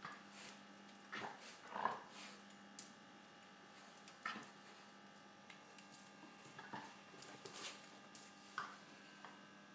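Miniature schnauzer giving a few short, faint whimpers and yips while play-fighting with a cat, along with light scuffles, scattered through the stretch rather than continuous.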